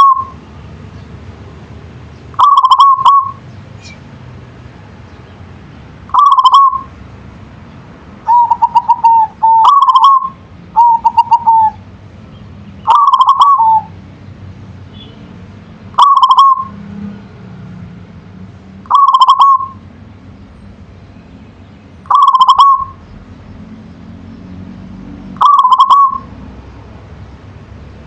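Zebra dove (perkutut) singing its cooing song: a short bubbling coo phrase repeated about every three seconds, with two quicker stuttering phrases near the middle.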